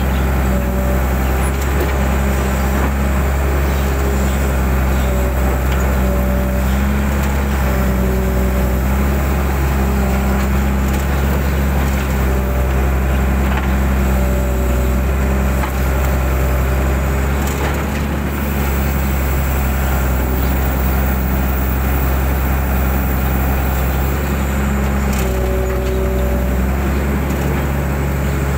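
Mitsubishi 120 excavator's diesel engine running steadily, with a higher whining tone from the working machine that comes and goes every second or two. A few faint cracks sound now and then.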